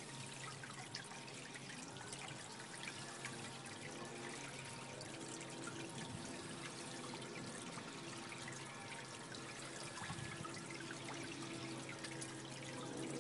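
Koi splashing and slurping at the pond surface: many small irregular wet clicks over a steady trickle of water.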